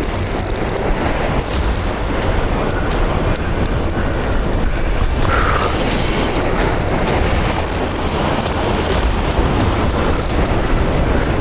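Strong wind buffeting the microphone in a steady low rumble, over surf washing against the jetty rocks.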